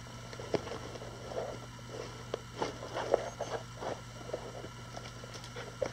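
Hands handling small items: soft, irregular rustles and light clicks over a low steady hum.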